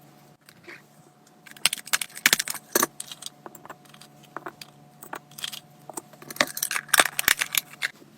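Packaging being handled and opened: bursts of crinkling, rustling and small clicks, in two busy spells, the first starting about a second and a half in and the second near the end.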